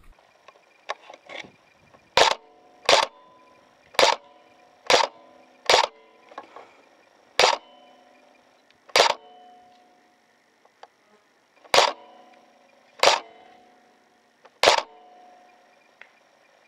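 Upgraded A&K SR25 airsoft electric rifle firing ten single shots at an irregular pace, each a sharp shot followed by a brief ringing tone. Between the shots, BBs can be heard striking the player downrange.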